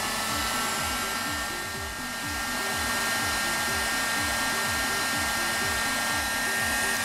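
Electric heat gun blowing hot air steadily, a rushing hiss with a steady motor whine, as it shrinks a self-soldering heat-shrink connector and melts its solder ring onto car wiring.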